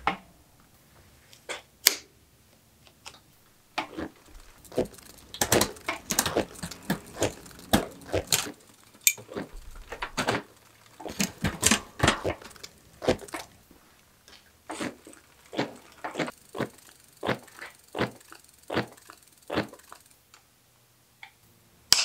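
Clicking and rattling of an old mountain bike's drivetrain worked by hand: a rusty chain running over the sprockets and derailleurs, ticking and clattering. A run of evenly spaced clicks comes at about two to three a second in the later part, and a sharp click comes at the very end.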